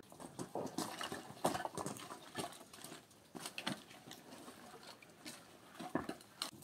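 Split wooden kindling sticks knocking and clattering against each other as they are gathered from a pile by hand, in irregular clacks.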